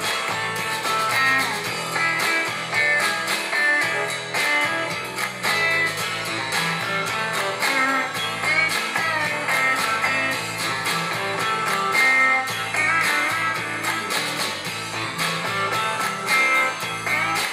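Guitar-led music playing through an Aiwa NSX-999 music centre and its speakers, an instrumental passage without singing.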